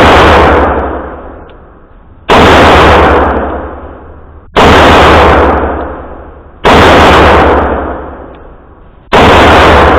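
Glock 17 9mm pistol fired slowly, four loud shots about two seconds apart, each followed by a long echoing decay.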